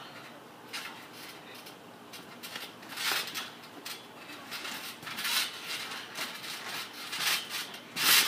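Wrestlers landing and scuffling on a trampoline mat, with a few short irregular thuds and rustles. The loudest comes near the end as one is flipped down onto the mat.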